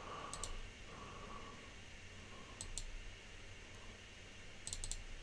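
Faint computer mouse clicks: a pair shortly after the start, another pair about two and a half seconds in, and a quick run of three or four near the end.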